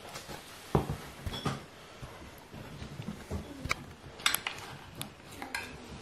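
A metal spoon clinking and scraping wet cat food out of a tin onto a ceramic saucer: a handful of short, light clicks and knocks, the loudest about a second in.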